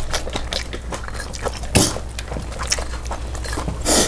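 Close-up chewing and biting of food: a run of small crunching clicks with two louder noisy bursts about two seconds apart.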